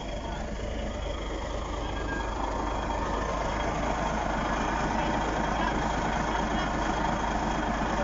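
Shantui SD16 crawler bulldozer's diesel engine running steadily, getting louder about three seconds in.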